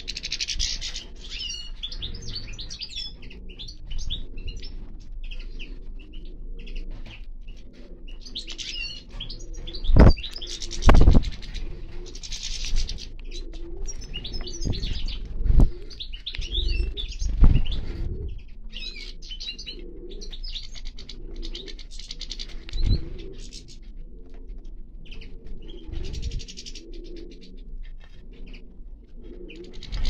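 A flock of finches, European goldfinches among them, twittering and chirping non-stop at a seed tub. Loud wing-flapping thumps come close by as birds fly in and out, twice around ten seconds in and again around fifteen to eighteen seconds in.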